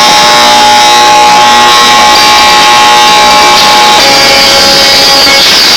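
Car sound system blasting at full volume through horn drivers, heavily distorted, with sustained tones that shift pitch about four seconds in and again near the end.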